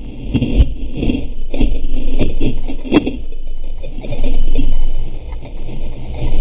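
Muffled rush and splash of sea water around a longboard surfboard, with wind buffeting, picked up by a board-mounted GoPro in its waterproof housing. Several sharp knocks and slaps are heard, the loudest about three seconds in.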